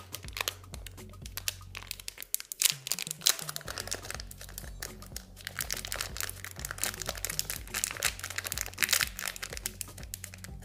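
Thin clear plastic packet crinkling and crackling in irregular bursts as it is handled and opened and a coiled pair of wired earphones is pulled out. Background music with steady low notes plays underneath.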